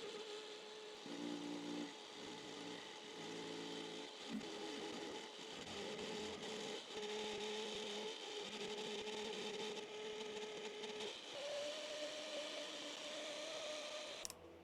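Small metal lathe running, turning down a brass bar: a steady motor tone with a hiss from the cut. The tone steps up in pitch about 11 seconds in, and the machine stops just before the end.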